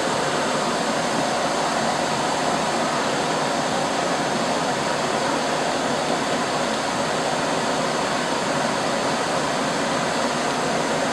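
Steady rushing air noise of a galvanometer CO2 laser cutting machine running, its fans and air flow going continuously, with a faint steady high-pitched tone over it.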